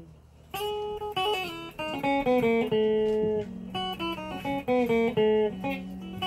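Electric guitar picking a melody of single notes, some of them held, that starts after a brief pause about half a second in.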